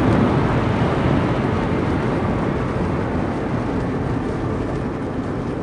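Road and tyre noise inside a Toyota Prius hybrid's cabin as it rolls downhill with the petrol engine shut off, using no fuel. The noise is steady and slowly fades as the car brakes and slows.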